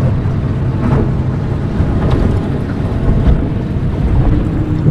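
Boat motor running steadily under way, with wind noise on the microphone.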